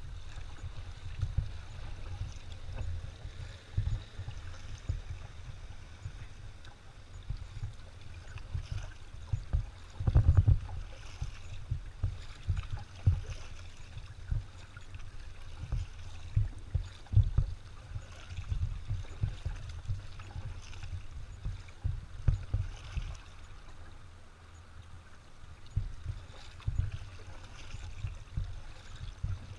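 Kayak being paddled: water splashing and dripping off the paddle blades, with irregular low thumps throughout, the loudest about a third of the way in.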